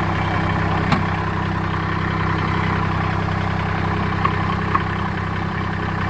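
Massey Ferguson GC1710 sub-compact tractor's diesel engine running at a steady speed. There is a sharp click about a second in and two short metallic clinks near the end.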